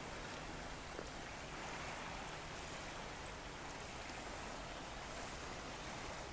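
Steady, even outdoor noise of a calm rocky seashore, with a faint high chirp about three seconds in.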